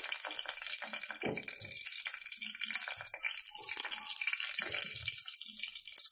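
Whole dried red chillies sizzling in hot ghee for a tadka: a steady frying hiss with dense fine crackles.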